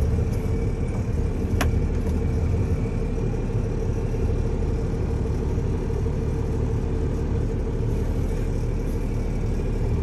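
Heavy truck's diesel engine idling steadily, heard from inside the cab, with one sharp click about one and a half seconds in.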